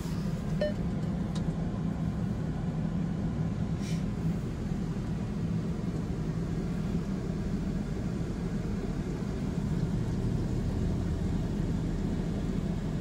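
Steady low rumble inside a car's cabin in a touch-free car wash bay.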